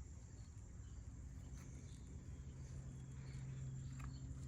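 Faint background ambience: a steady low hum, a little stronger in the second half, under a thin steady high-pitched tone, with a few soft clicks.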